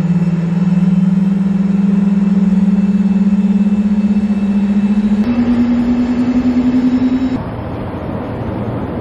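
Boeing 747 jet engines droning: a loud low hum that pulses as the engines beat against each other, rising slightly in pitch and stepping higher about five seconds in. After about seven seconds it gives way to a steady rushing jet noise.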